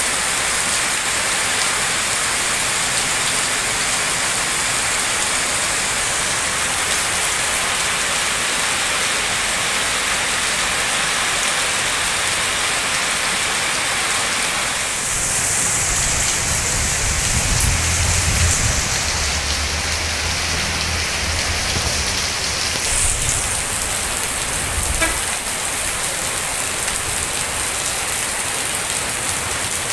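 Heavy rain falling steadily. About halfway through, a low rumble joins it for roughly ten seconds.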